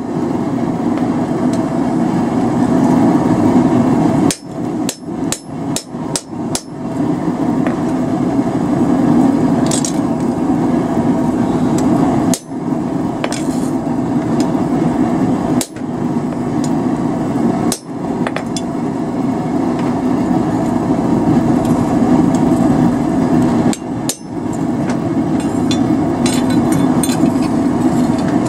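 Hand hammer tapping a hot chisel held against red-hot steel on an anvil, cutting the vein lines into a forged steel feather. It strikes in quick runs of blows with a few short pauses.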